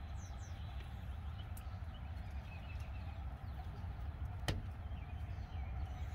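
Hens clucking over a steady low rumble, with one sharp click about four and a half seconds in.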